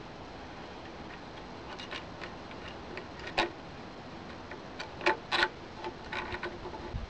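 Scattered clicks and taps of a Lawn-Boy carburetor being handled and fitted back onto the mower's engine by hand, the loudest a pair of sharp clicks about five seconds in.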